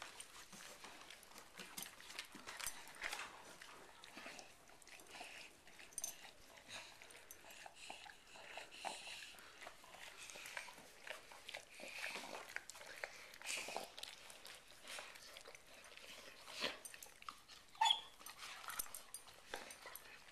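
A German shepherd and a half coonhound/half English mastiff licking inside each other's mouths: irregular wet licking and smacking sounds. A brief sharp sound near the end is the loudest moment.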